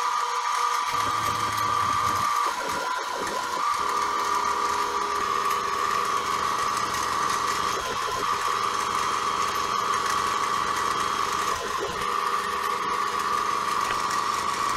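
CNC mini mill running, its spindle turning a quarter-20 tap drill at 1200 rpm with a steady whine. About a second in, the stepper-driven axes start up, moving the table into position and then feeding the drill slowly down in a peck-drilling cycle.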